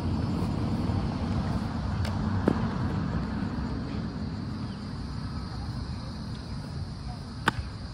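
Steady low outdoor rumble, with three sharp slaps: two about two seconds in, half a second apart, and one near the end.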